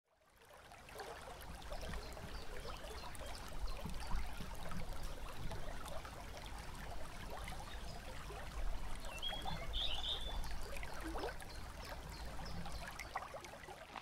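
A small forest creek babbling and trickling over rocks, fading in over the first second. A brief high chirp sounds about nine seconds in.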